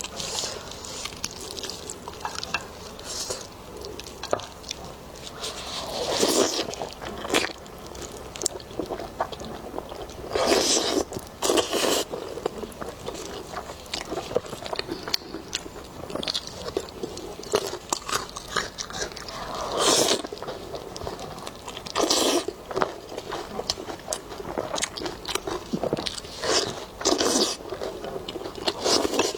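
Close-up eating sounds of a person biting and chewing lamb ribs. Irregular smaller chewing noises run throughout, with louder bites every few seconds.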